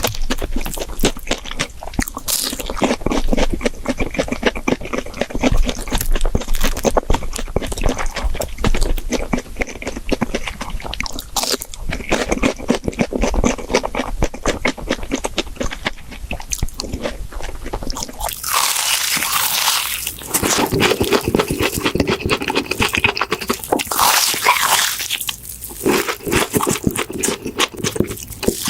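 Close-miked crunching and chewing of crispy fried pork cutlet (tonkatsu): dense crackly bites and chews. About two-thirds of the way through the sound turns brighter and hissier, as a different eater's recording begins.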